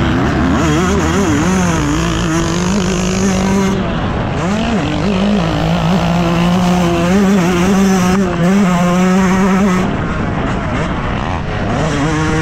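Motocross bike engine running under hard throttle, its pitch rising and falling repeatedly as the throttle is opened and closed, with a few stretches held steady.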